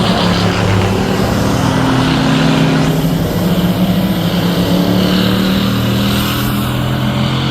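Edited-in sound effects of racing engines and a drone's propellers running together: several steady engine tones overlap, their pitches shifting slowly over a rushing noise.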